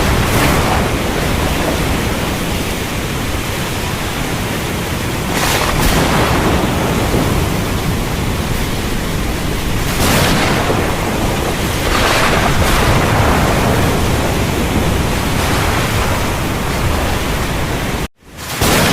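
Heavy rain hissing steadily, broken by sharp thunder cracks several times, each fading off. Near the end the sound cuts out abruptly for a moment and then swells back in.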